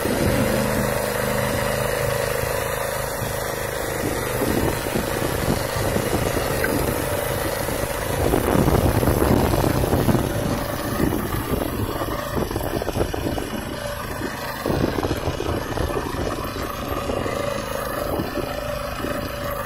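BCS Ferrari two-wheel walking tractor's engine running steadily while its rotary inter-row tiller attachment works the soil. It swells louder for a couple of seconds about eight seconds in.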